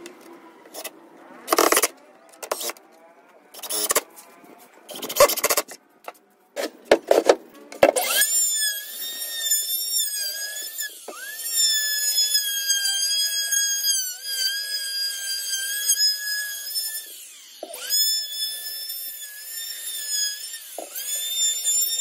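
Short bursts of a cordless drill driving screws into plywood. About eight seconds in, a handheld plunge router starts and runs with a steady high whine, its pitch dipping briefly a few times as the bit bites into the cabinet edge.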